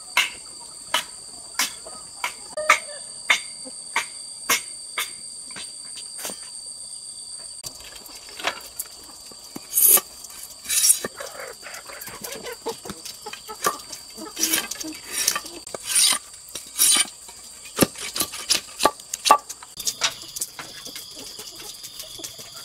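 Insects droning steadily in two high pitches, over a series of sharp knocks: evenly spaced, a little under two a second, for the first six seconds or so, then louder and irregular.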